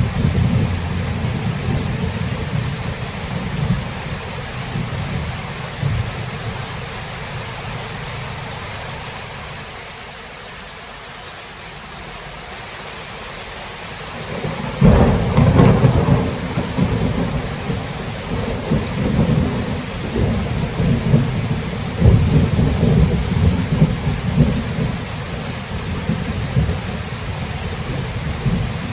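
Thunderstorm: steady rain hissing throughout, with low rolling thunder that dies away toward the middle, then a loud thunderclap about halfway through followed by long rumbling rolls.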